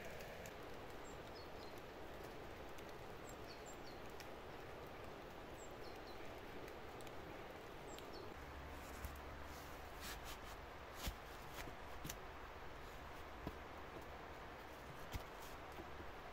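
Quiet woodland ambience: a steady hiss, a few faint short high chirps in the first half, and scattered sharp clicks over a low rumble in the second half.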